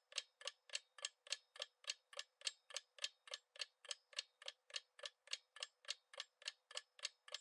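Quiz countdown-timer sound effect: a clock ticking faintly and steadily, about three and a half ticks a second.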